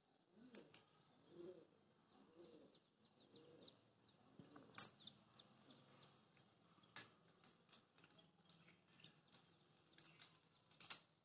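Faint dove cooing: several soft, low coos in the first few seconds. Quick, high chirps from small birds run through the background, with a few sharp clicks.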